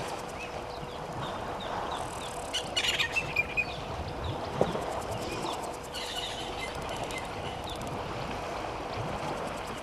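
Bush ambience with birds calling: short falling chirps repeat every fraction of a second, with a louder flurry of calls about three seconds in, over a faint steady hum and an even background hiss.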